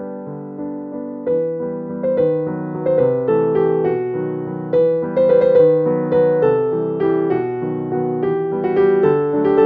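Background piano music: a melody of struck notes, each dying away after it sounds.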